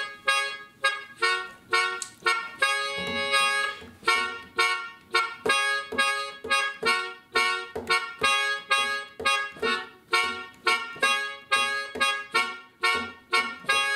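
Melodica playing short staccato chords in a steady rhythm, about two a second, with one longer held chord about three seconds in.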